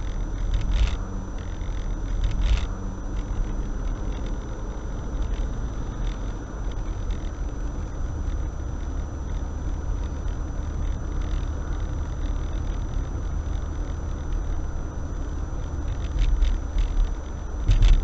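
Car driving in city traffic, heard from inside the cabin: a steady low engine and road rumble with a few short knocks, several of them near the end.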